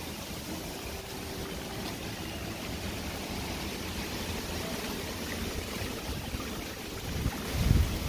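Steady rush of running water from a stream, with a louder low buffeting rumble near the end.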